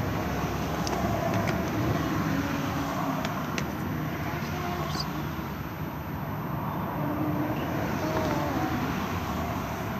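Steady background noise like traffic, with faint distant voices and a few light clicks.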